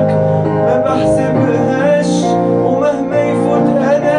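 A male vocalist singing an Egyptian Arabic ballad over instrumental backing, with long held notes that waver in pitch.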